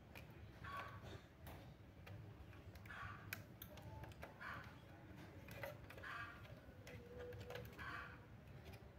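Faint small clicks and taps from hands handling parts and cables inside an opened laptop. Short, slightly louder noises come about every second and a half.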